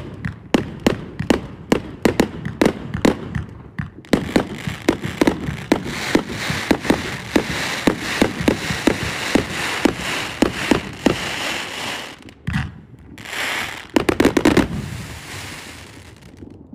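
A 1.2-inch 258-shot firework cake firing shot after shot, about three a second. From about four seconds in, a dense crackling hiss of bursting stars runs over the shots. A last quick volley comes near the end, then the sound dies away as the cake finishes.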